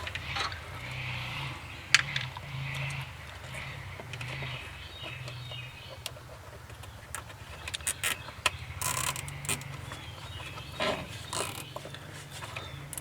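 Scattered sharp clicks and rattles of hand work, as zip ties are pulled through to hold a radiator fan shroud in place. A cluster of clicks comes about eight seconds in, over a steady low hum.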